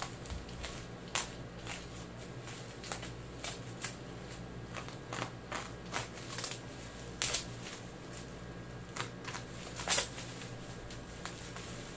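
Plastic bubble-wrap packaging crinkling and crackling under hands while a box cutter slices through the parcel's packing tape: irregular sharp crackles, the loudest about seven and ten seconds in.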